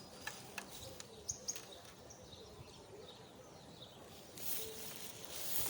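Faint outdoor ambience: a low, steady rush of wind with a few faint bird chirps and small clicks. The rush grows louder about four and a half seconds in.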